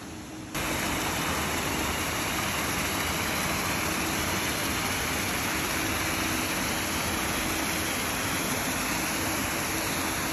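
Paddlewheel aerators churning the water of a fish-farm raceway, a loud, steady splashing rush. It starts abruptly about half a second in.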